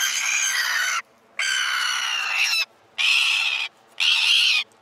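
Red-billed tropicbird screeching in the hand: four harsh, shrill calls of about a second each with short gaps between them, the protest of a bird pulled from its nest and held.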